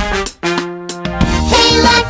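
Upbeat background music: a drum hit at the start, then held notes, with fuller instrumentation coming in just over a second in.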